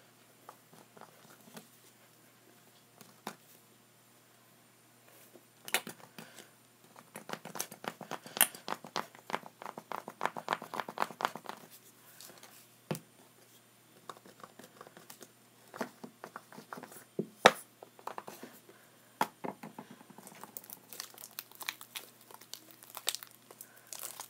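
Homemade slime being kneaded and squished by hand as more lotion is worked in: a run of small wet clicks and crackles, thickest in the middle and again near the end, with a few sharper pops.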